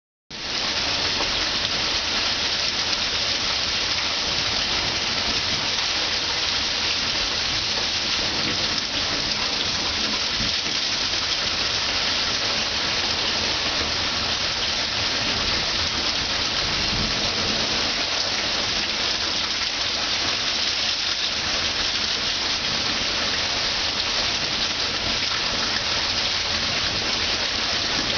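Heavy monsoon rain pouring down onto a street: a steady, even hiss of rain that does not let up.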